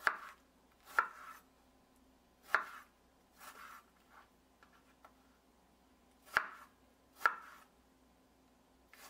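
Knife chopping fresh strawberries into small pieces: single sharp strokes about a second apart, with a pause of about two seconds midway.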